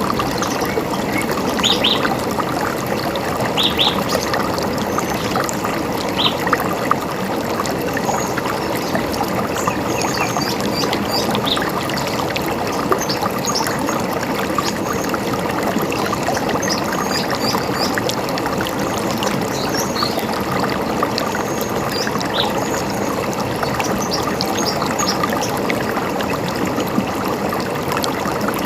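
River water running steadily, with birds giving short, scattered chirps above it, most of them in the first two-thirds.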